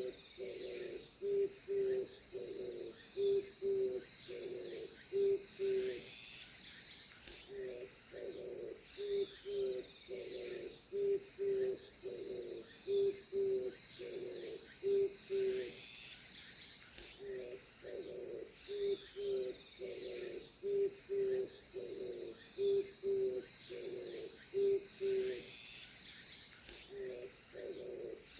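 A bird calling a long series of low, even hoots, about two a second, in three runs separated by short pauses, while other birds chirp faintly. Throughout, a steady high-pitched pulsing, two or three beats a second, sounds like an insect.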